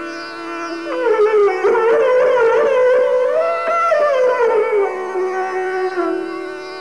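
Esraj playing a slow melodic phrase in Raag Misra Bhoop, bowed notes sliding smoothly from one pitch to the next. The line climbs to a held high note around the middle, then glides back down and settles on a lower held note near the end.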